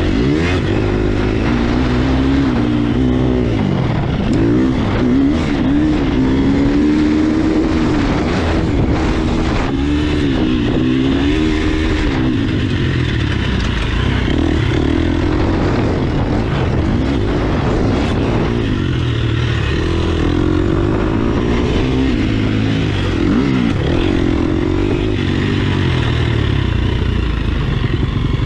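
Husqvarna motocross bike's engine revving, heard up close from a camera mounted on the bike. Its pitch rises and falls again and again as the throttle is opened and shut through the corners and straights.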